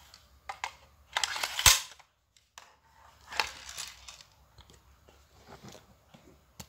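Plastic clicking and rattling as a magazine is pushed into the grip of an airsoft Glock 18C, ending in one sharp snap about one and a half seconds in as it seats. A second scraping knock follows as the pistol is set down, then a few light clicks.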